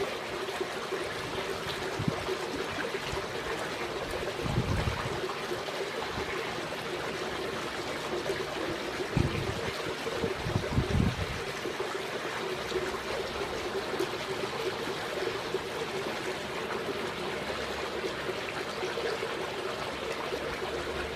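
Steady trickling of running water under a faint constant hum, with a few brief low buffets of wind on the microphone.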